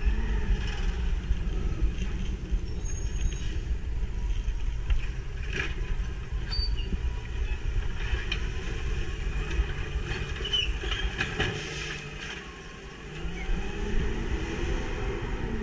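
CNG-powered garbage truck engine running as the truck drives slowly, with a low rumble throughout. The engine pitch falls early on, dips briefly about twelve seconds in, then rises again as it pulls ahead. Scattered clicks and rattles sound over it.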